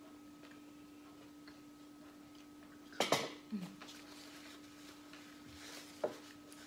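Glass and dishes knocking on a dinner table: a sharp clatter about halfway through, a smaller knock just after, and a single click near the end, over a steady faint hum.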